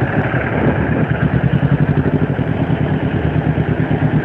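Kawasaki Ninja 250R's parallel-twin engine running at low revs as the bike rolls slowly through traffic, a steady, evenly pulsing engine note.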